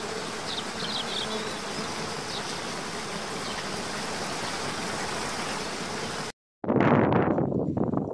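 Steady rushing of a waterfall with a faint hum and a few short high bird chirps. After a sudden brief dropout near the end, loud gusting wind buffets the microphone.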